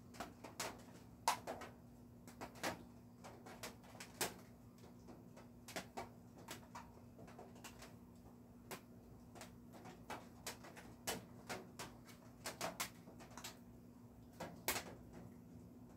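Irregular light clicks and taps, roughly two or three a second, over a faint steady low hum.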